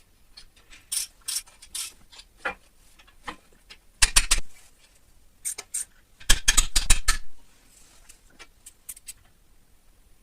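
Scattered metallic clicks with two short runs of rapid ratcheting, about four seconds in and again around six and a half seconds in, from a ratchet mechanism being worked on an old motorcycle.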